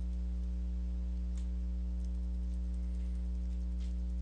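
Steady low electrical hum, with a few faint computer keyboard clicks, about three in all, from the right arrow key being tapped.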